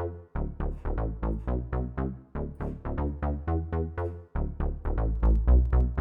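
Synth bass line playing through the Waves SSL EV2 channel strip plugin: a busy run of short, plucked-sounding notes, about four or five a second, changing pitch, with a brief break about four seconds in.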